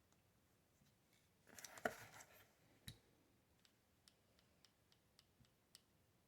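Faint handling of button-cell batteries and the scope's battery cap: a brief clattering rattle of small clicks about two seconds in, a knock, then a few light scattered clicks.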